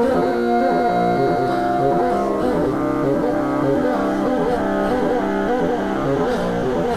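Electronically processed bassoon music: several held drone tones layered under a wavering, ornamented melodic line, dense and continuous.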